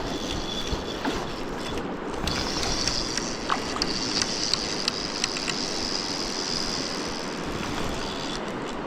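River water rushing over rocks, with a steady high-pitched buzz starting about two seconds in and stopping near the end.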